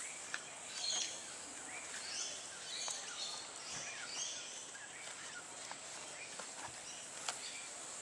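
Birds chirping in the background over a steady high hiss, with a few light clicks and rustles of a nylon strap being worked through a plastic buckle.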